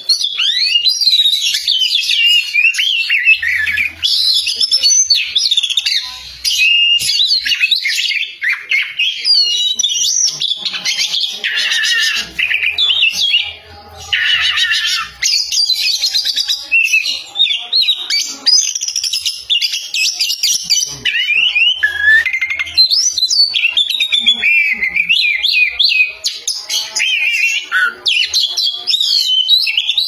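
Oriental magpie-robin singing continuously: a loud, varied song of rapid whistles and warbles, with a brief pause a little before halfway.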